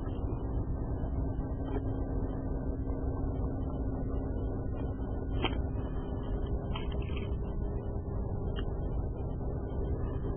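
A boat's motor running steadily: a low rumble with a constant hum.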